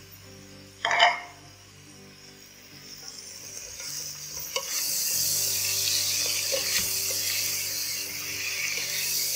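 Chilled beef pieces frying in oil and ghee in a metal pot, stirred with a wooden spoon. There is a loud knock about a second in. From about four seconds in a sizzle grows louder, with the spoon scraping and clicking against the pot.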